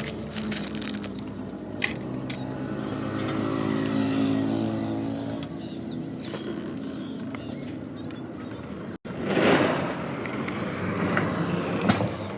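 Motorcycle engine running, a steady low hum that swells briefly about four seconds in. After a sudden break about nine seconds in, a loud burst of noise follows.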